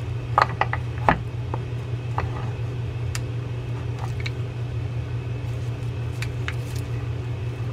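Scattered light clicks and taps of a Penn Formula 15LD lever-drag fishing reel's parts being handled as its side plate is lifted off. The two sharpest come about half a second and a second in. Under them runs a steady low background hum.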